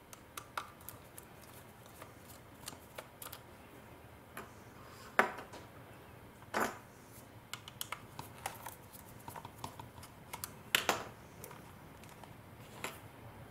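Irregular small clicks and taps of a precision screwdriver working thread-locked screws out of a compact camera's body, as the camera is handled. There are a few louder knocks about five, six and a half and eleven seconds in.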